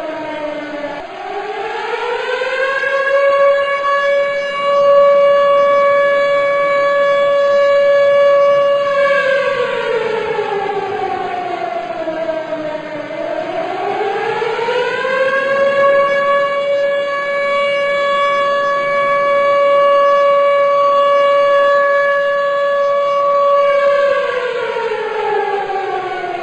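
Civil-defence siren sounding the one-minute remembrance signal for a moment of silence. Its pitch falls, rises and holds steady for about six seconds, falls again, then rises and holds for about eight seconds before falling near the end.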